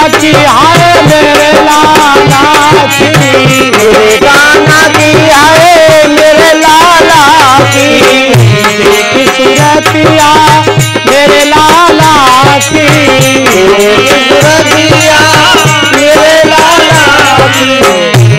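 Kirtan bhajan music: a dholak drum keeping a steady, even beat, a harmonium playing the tune, and small hand cymbals jingling, with a man's voice singing over them.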